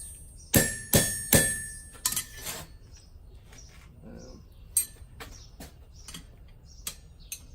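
Hammer blows on steel tongs pressed against a forged bookend's pin joint, driving the parts together: three loud, ringing metallic strikes in quick succession about half a second in, then a run of lighter taps and clinks.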